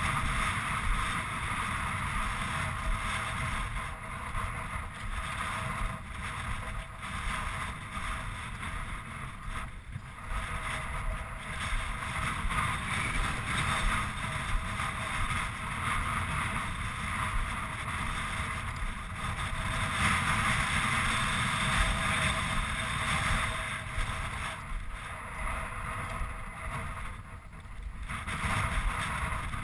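Wind buffeting a helmet-mounted action camera, a continuous uneven rumble and hiss that rises and falls in gusts.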